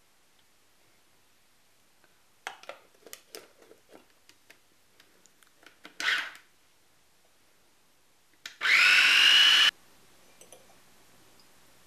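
Plastic clicks and knocks from a small food processor being handled, then a short loud rasp about six seconds in. Near the end the motor runs for about a second, its whine rising as it spins up, chopping green curry paste.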